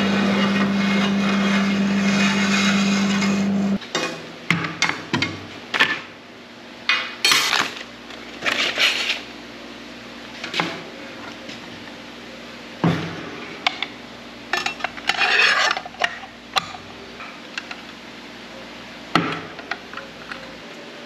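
A steady machine hum that cuts off abruptly about four seconds in, then scattered metallic clinks, knocks and rustles as an Evolution circular saw and its toothed blade are handled and the blade is fitted.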